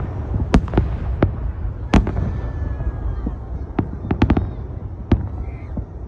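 Festive fireworks salute: an irregular series of sharp bangs over a continuous low rumble, the loudest about two seconds in and a quick cluster of bangs around four seconds.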